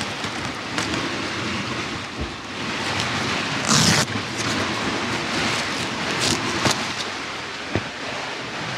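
Steady rushing noise of wind and sea on a sailing catamaran's deck, with the rustle of the dinghy's fabric cover being handled. A louder brushing rush about four seconds in, and a few light clicks later on.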